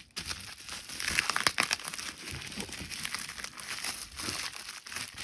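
Shipping packaging being opened and handled by hand: an irregular run of rustles and small crackles, busier from about a second in.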